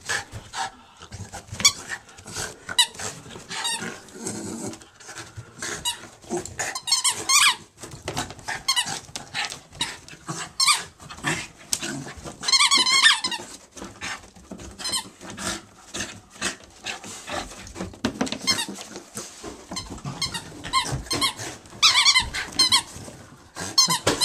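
Jack Russell terrier biting and chewing a rubber squeaky mouse toy, making it squeak over and over in short, high-pitched squeaks, with fast runs of squeaks about 7, 13 and 22 seconds in.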